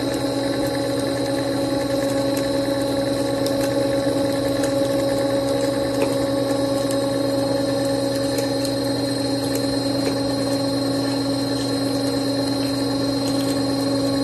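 Machine spindle turning a large spiral-flute power tap as it cuts a thread in a metal block: a steady motor hum with a constant whine, and a few faint scattered ticks.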